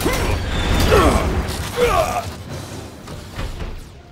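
Mechanical sound effects of an animated action scene, clanks and whirs with gliding tones, over a music score, dying away near the end.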